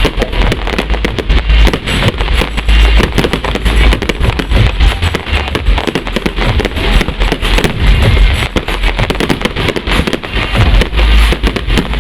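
Fireworks display at full intensity: a dense, continuous barrage of rapid cracks and pops over deep booms, with no let-up.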